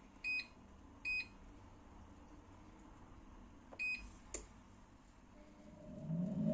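Air fryer control panel beeping as it is set: three short, high electronic beeps, the last a few seconds after the first two, then a click. A low rushing sound starts to rise near the end.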